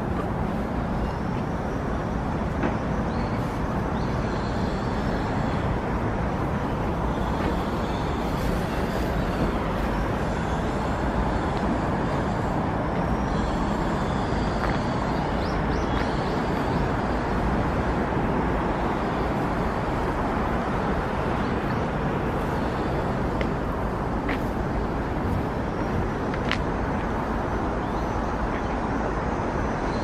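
Steady outdoor rumble and hiss, like distant city traffic or wind on the microphone, with a couple of faint clicks near the end.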